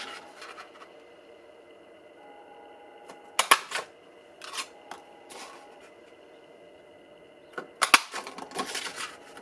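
Sharp clacks of a 2-inch circle punch being pressed through cardstock, with paper being handled; the loudest clacks come about three and a half seconds in and again near the end.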